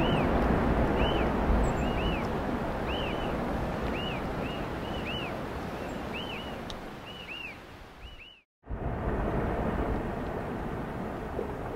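Wind buffeting the microphone while a small bird repeats short arched chirps, roughly one a second. The sound cuts out briefly about eight seconds in, then a steady wind rush returns without the chirps.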